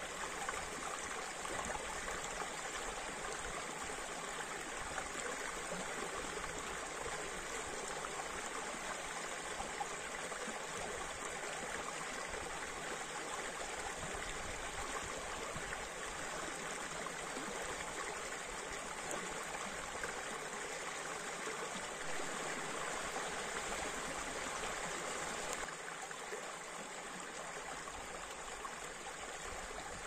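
Steady rushing of a stream running over rocks, dropping slightly in level about 25 seconds in.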